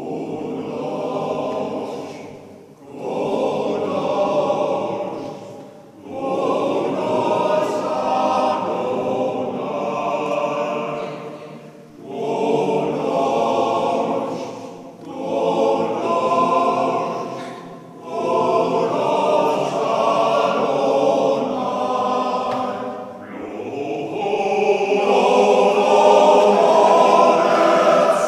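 Male voice choir singing in a church, in phrases of a few seconds with short breaks between them, growing louder toward the end.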